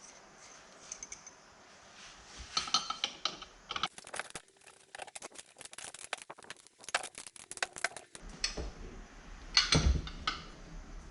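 Small metal parts and hand tools clinking and knocking as they are handled and fitted by hand, with a quick run of clicks in the middle and a louder knock near the end.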